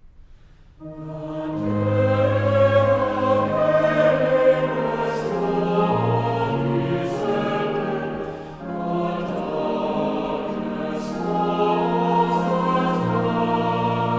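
Choir singing slow, sustained chords, coming in about a second in, with a short break between phrases around the middle.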